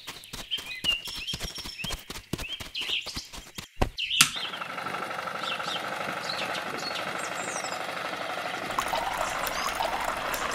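Birds chirping over a fast run of sharp knocks, which give way about four seconds in to a steady rushing noise that runs on with the chirping.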